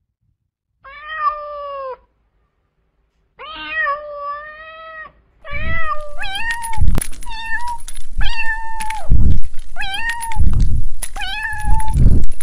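Cat meowing: two drawn-out meows that fall in pitch, then a run of shorter meows about one a second, with a few low thumps among them.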